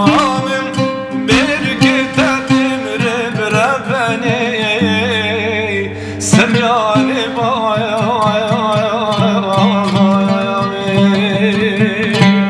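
Kurdish folk song music: an ornamented, wavering melody over a steady low held drone, the song's closing passage.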